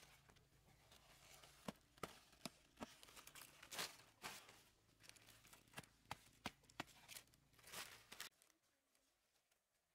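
Cabbage leaves being snapped off and handled by hand: a string of faint, crisp snaps with leaf rustling, stopping about eight seconds in.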